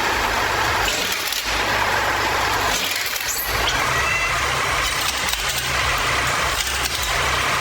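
Heavy machinery running: a steady engine rumble under a noisy hiss, dipping briefly a few times.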